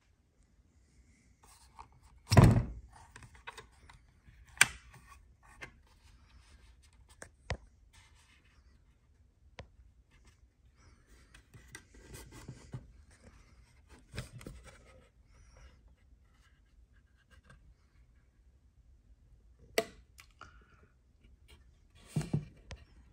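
Handling noises from unboxing old equipment: a heavy thunk about two seconds in, sharp clicks and knocks, and stretches of scraping and rustling.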